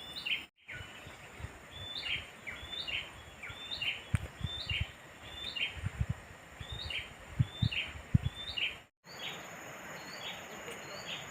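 A bird repeats a short call again and again, about two a second, each note dropping from a higher to a lower pitch, over a steady outdoor hiss. A few soft low thumps come in the middle.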